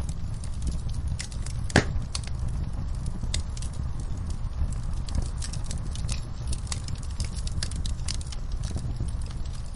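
Fireplace fire crackling, with many small irregular pops over a low steady rumble; one much louder pop comes a little under two seconds in.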